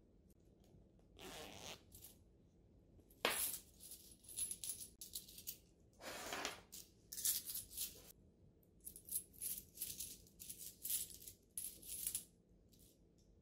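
Handful of Japanese yen coins jingling and clinking as they are shaken out of a plush coin purse into a palm and moved about. The clinks come in irregular bright clusters, densest about three seconds in and again in the second half.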